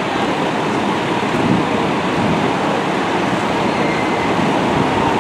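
Steady rumble of idling fire trucks' diesel engines, with street traffic noise.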